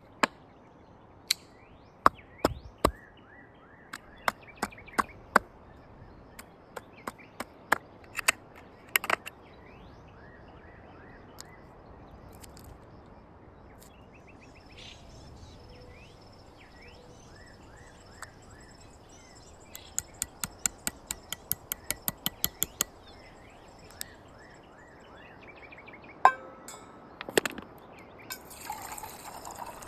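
Sharp clicks and knocks, one at a time and at irregular intervals, with a quick run of about four a second around twenty seconds in. Faint bird chirps behind them.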